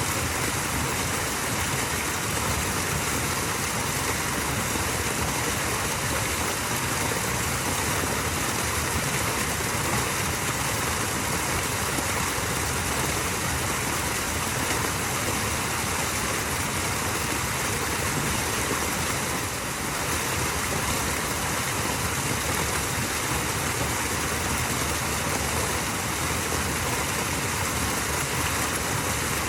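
Small waterfall, water falling and running in a steady, even rush.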